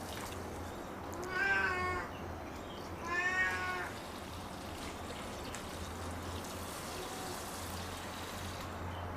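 Domestic cat meowing twice, two drawn-out calls about a second and a half apart.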